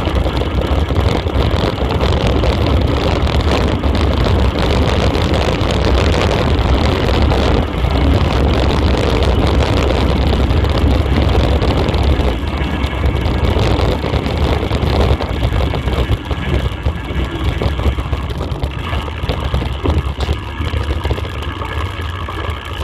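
Wind buffeting a moving camera and a steady rumble from riding fast over a rough dirt forest track, a little quieter in the last few seconds.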